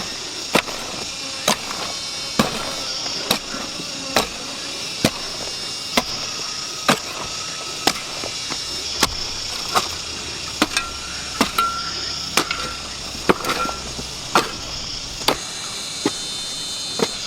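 Regular chopping strokes, one hard, sharp hit about every second, keeping an even pace.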